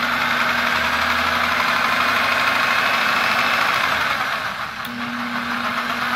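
Bauer 1641E-B SDS rotary hammer's electric motor running steadily on its low first-speed setting, as set by its internal speed-limit dial; it eases off briefly about three-quarters of the way through.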